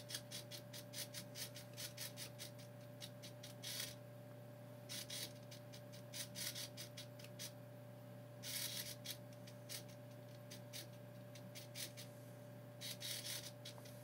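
Servo motor driven by a wireless remote, moving in short, faint bursts of gear noise in several clusters as the remote is tilted. A faint steady hum sits underneath.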